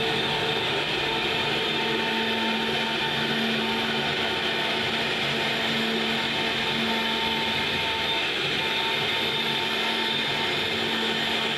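CNC router running steadily: the spindle's constant whine and hum over a hiss of machine noise, with no change in pitch or level.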